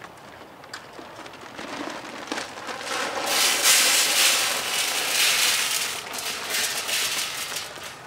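Shelled corn pouring from a 40-pound bag into a deer feeder barrel: a rattling rush of kernels that builds about three seconds in, peaks, and tails off near the end, after some light rustling and clicks of the bag being handled.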